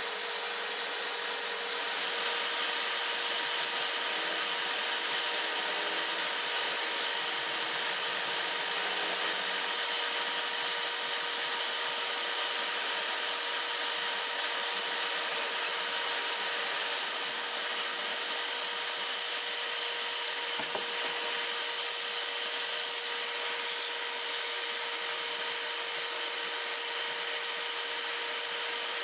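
Corded electric drill, rigged as a homemade wood lathe, running at a steady speed and spinning a small wooden handle blank while a flat chisel scrapes shavings from it. Near the end, sandpaper rubs against the turning wood instead.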